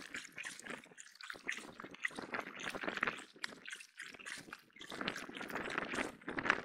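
Water splashing and dripping as an inflatable kayak is paddled, coming in spells a second or two long with short lulls between.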